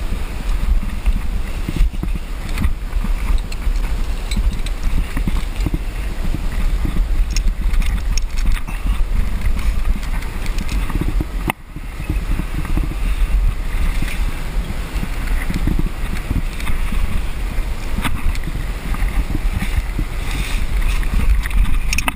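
Wind buffeting a head-mounted camera's microphone: a steady low rumble that keeps rising and falling, dipping briefly about halfway through, with a few faint knocks.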